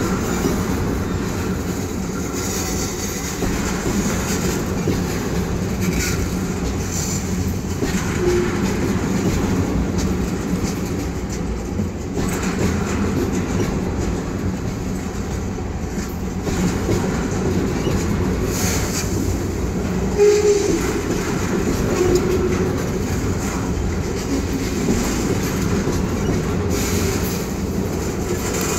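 Freight train of loaded ethanol tank cars rolling slowly past on track in poor repair: a steady rumble of wheels with clacking over the rail joints.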